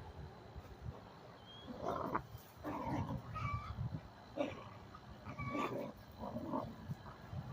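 Two dogs growling in rough play-fighting, in irregular bursts about once a second, some with short higher-pitched yelps.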